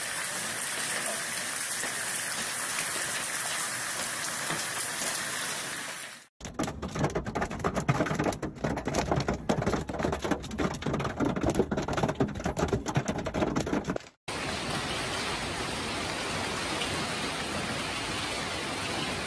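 Hail and rain falling in a steady hiss. About six seconds in, the sound switches to a dense, uneven clatter of hailstones striking hard surfaces. A few seconds before the end it switches back to a steady hiss.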